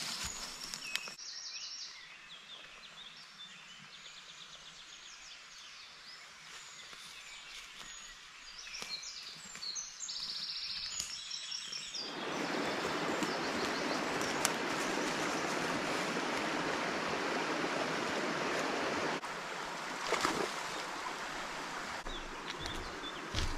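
Woodland birds calling and chirping in short phrases, then about halfway in a steady rush of a flowing stream starts abruptly and carries on, with a few sharp snaps of footsteps on twigs near the end.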